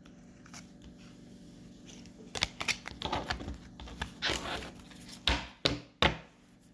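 A deck of oracle cards being shuffled and handled: a run of irregular riffling and slapping clicks, the loudest two near the end.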